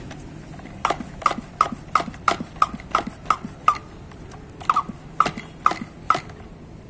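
Hand pump of a Dura-X pressure sprayer being pumped to pressurise the tank, its plunger giving a short squeaky click on each stroke, about three a second. There are nine strokes, a short pause, then four more.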